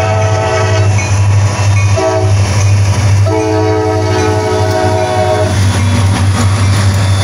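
CSX diesel locomotives passing through a grade crossing, sounding their air horn: a long blast ending about a second in, a short blast about two seconds in, then a long blast that stops near five and a half seconds, the close of the crossing warning. Underneath runs the steady rumble of the locomotive diesel engines.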